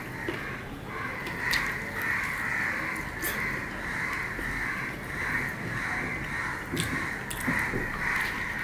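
Crows cawing over and over in the background, a harsh call repeating about twice a second, with a few sharp clicks and smacks from eating rice by hand.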